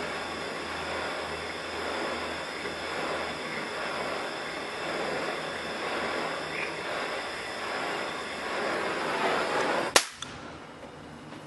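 Handheld gas torch burning with a steady hiss as it heats a seized stud in a small engine's cylinder block. Near the end it cuts off suddenly with a single sharp click.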